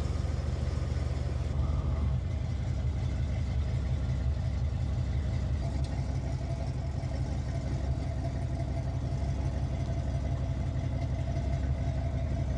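1972 Chevrolet Monte Carlo's V8 engine idling steadily.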